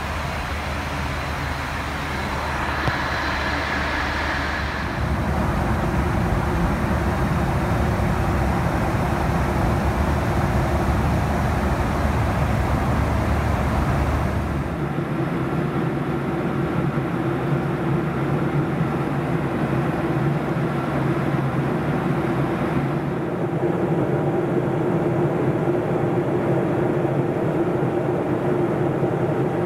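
Steady in-flight cabin noise of a Boeing 737-400 with CFM56-3 engines: a constant rush of air and engine hum. Its character shifts abruptly about 5, 15 and 23 seconds in, and a steady low drone is stronger over the last several seconds.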